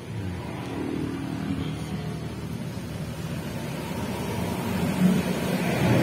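A motor vehicle's engine rumbling low, growing steadily louder.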